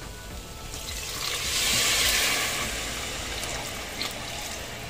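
Water being poured from a bowl into an aluminium pressure cooker onto rice, dal and vegetables, loudest about two seconds in.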